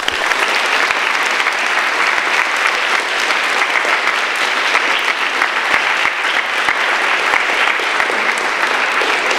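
A large audience of schoolchildren applauding in a hall: dense, steady clapping that breaks out all at once.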